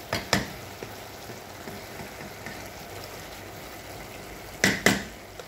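Chicken pieces sizzling and simmering in sauce in a stainless steel pot, a steady hiss. A wooden spoon stirring knocks twice against the pot just after the start and twice more near the end.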